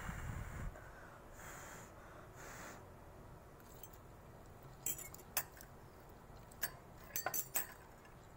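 Metal cooking utensils clinking against the metal wok and a plate: about six short, sharp clinks starting about five seconds in, a few of them in quick succession.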